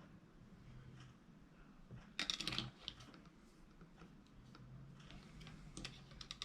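Small tools and plastic parts of a Nintendo Switch Joy-Con being handled during a repair: light clicks and taps, with a quick cluster about two seconds in and another near the end.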